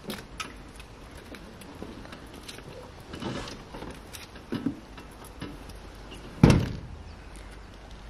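Car door closing with one solid thud about six and a half seconds in, after a few quieter knocks and rustles as someone gets into the driver's seat.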